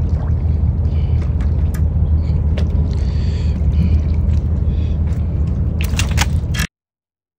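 Steady low rumble of wind buffeting the microphone, with scattered small clicks and scrapes and a cluster of sharper clicks near the end. The sound then cuts out abruptly about a second before the end.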